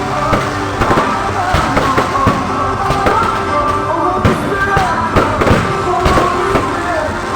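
Fireworks bursting and crackling in quick, irregular bangs over loud music playing.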